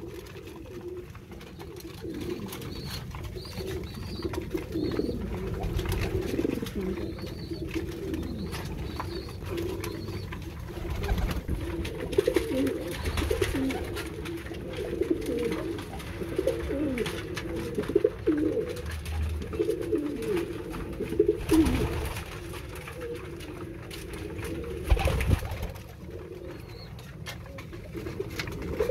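A flock of racing pigeons cooing over one another, many low rolling coos overlapping throughout. Scattered sharp taps run beneath them, and there are a few louder knocks in the second half.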